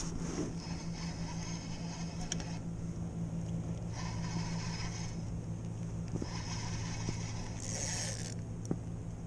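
Spinning fishing reel being cranked in spells, a rasping whir that starts and stops every second or two as a lure is retrieved, over a steady low hum.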